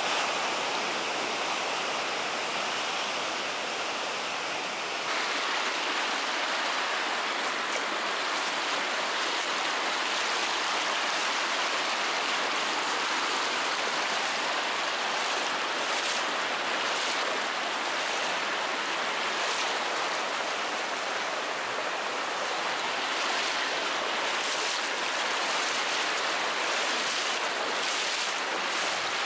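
Rushing mountain river water, a steady loud rush heard close up as booted legs wade through the current.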